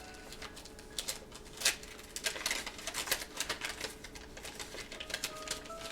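Hands opening a small thank-you package of extras, with irregular crinkling and clicking of the wrapping as it is pulled open and its contents handled.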